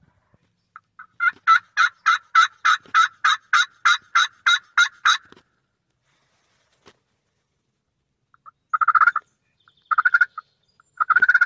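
Turkey yelping: a run of about fourteen evenly spaced, raspy yelps over some four seconds. Three short, rapid bursts of calling follow in the second half.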